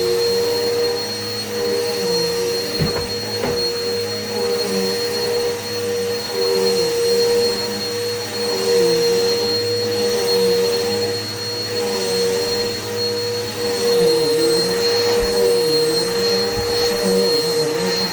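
Vacuum cleaner running steadily, with a constant motor hum and a high whine; its lower tones waver and dip now and then. A couple of faint knocks sound about three seconds in.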